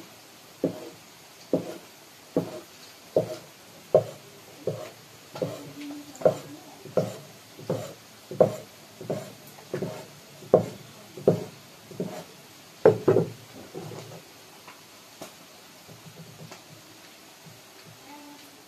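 A steel cleaver chops through a rope of flour dough and strikes a wooden chopping board. It makes a steady run of knocks a little more than one a second, which thin out to a few faint taps after about 14 seconds.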